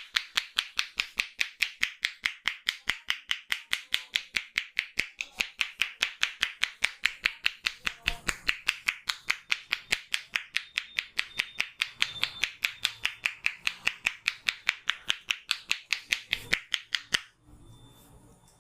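A barber's hands strike a customer's head in a fast percussive head massage: rapid, even claps at about five a second, keeping one steady rhythm until they stop about seventeen seconds in.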